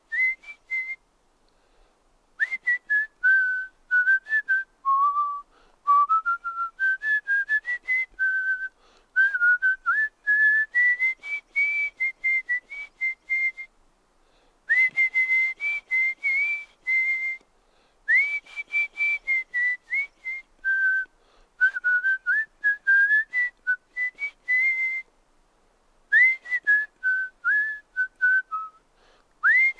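A person whistling through pursed lips: a string of short notes that rise and fall in pitch, in phrases broken by brief pauses, with some breath hiss around the notes.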